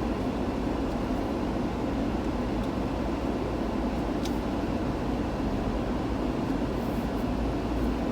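Steady road noise of a moving vehicle: an even rumble and hiss with no distinct events.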